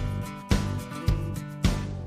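Background music with a steady beat, a strong hit a little more often than twice a second over held pitched notes.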